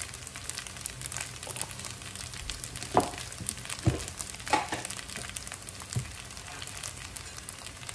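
Rice and onion frying in bacon grease in a pan: a steady sizzle full of fine crackles, with a few light knocks.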